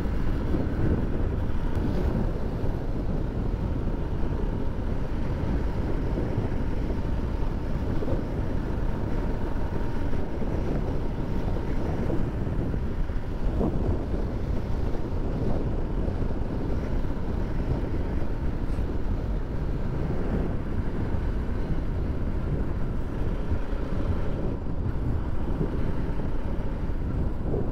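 Bajaj Pulsar RS200 motorcycle riding at a steady cruise, its single-cylinder engine running evenly under a constant rush of wind on the camera's microphone.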